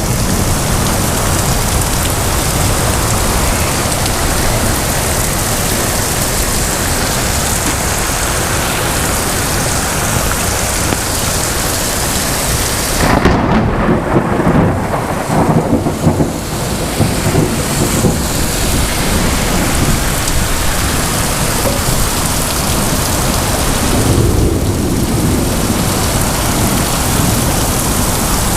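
Heavy rain pouring steadily in a thunderstorm. About halfway through, a long roll of thunder rumbles for several seconds, and a shorter, weaker rumble follows near the end.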